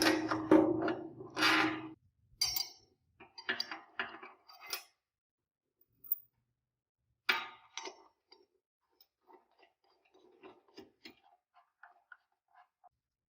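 Workshop handling noises: a quick run of ringing knocks at first, then scattered short clicks and clinks of tools and parts being handled, fading to faint sparse ticks.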